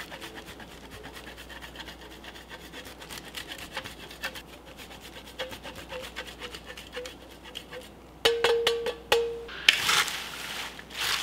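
Arugula leaves rustling as they are tossed with wooden salad servers in a wooden bowl, starting near the end. A few faint scraping strokes fade out early on, and a burst of sharp clicks with a brief ringing tone comes just before the tossing.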